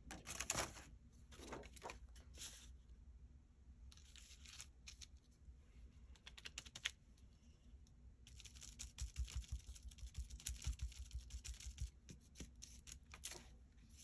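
Sponge dabbing acrylic paint through a plastic stencil onto card: faint, quick taps in bursts, with a long fast run in the second half.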